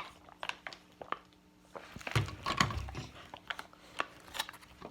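A person eating chicken off the bone close to the microphone: chewing and wet mouth clicks, with a few small knocks and a louder cluster of chewing about halfway through.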